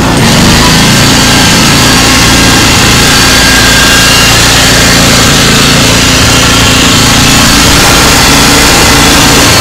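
Small engine of a homemade halftrack running steadily and loud, close to the microphone.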